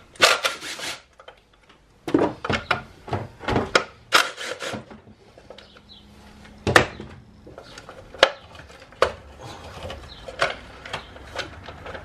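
Cordless impact driver rattling briefly at the start as it undoes a bolt on an engine-bay cover. After it come scattered clicks, knocks and rubbing as bolts and plastic parts are handled by hand.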